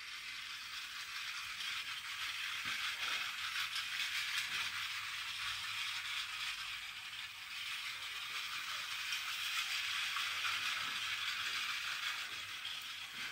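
Battery-powered miniature toy train running steadily around its plastic track, 3D-printed sections included: the steady high whir and rattle of its small motor, gears and wheels.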